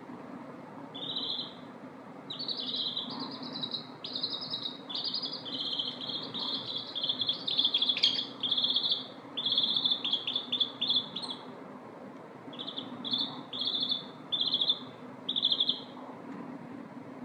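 Baby chickens (chicks) peeping: a long run of short, high-pitched peeps, many in quick succession, with a brief pause about two-thirds of the way through.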